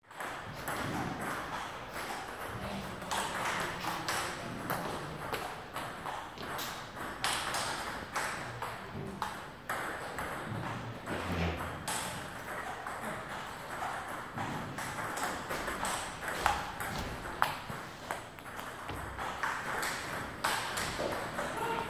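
Table tennis rally: the celluloid-type ball clicking sharply off paddles and a Butterfly table, a string of irregular clicks every fraction of a second.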